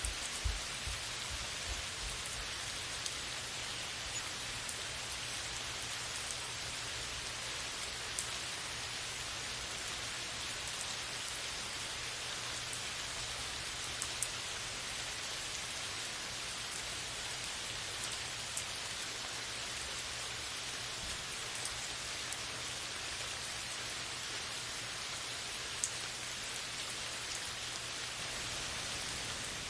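Steady heavy rain falling on a leafy forest canopy: an even hiss with a few sharper single drop impacts scattered through it. There is a brief low rumble in the first second or two.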